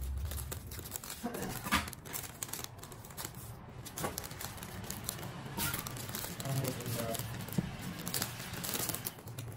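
Sheets of florist wrapping paper crinkling and rustling as hands fold and gather them around a bouquet, with irregular sharp crackles.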